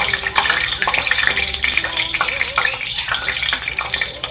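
Hot canola oil sizzling and crackling for frying: a steady hiss dotted with many small pops.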